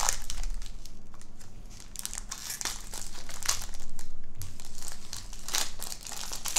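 Foil wrapper of a Topps Chrome baseball card pack crinkling as it is handled and opened, in many quick, irregular crackles.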